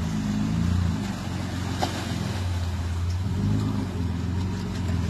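Nissan Patrol SUV engine pulling through deep muddy water, its revs rising and falling twice. There is one short knock about two seconds in.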